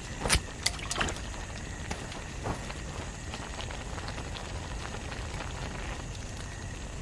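Stew simmering in a pot over a campfire: a steady bubbling hiss with faint scattered ticks, after a few sharp knocks in the first second.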